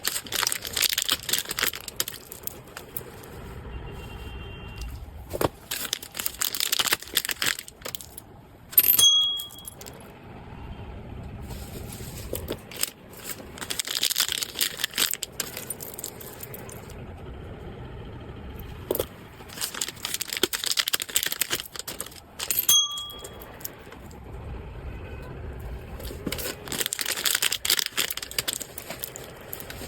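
Packaging being handled, crinkling and rustling in repeated bursts every several seconds, with two short metallic pings, one about nine seconds in and one about twenty-three seconds in.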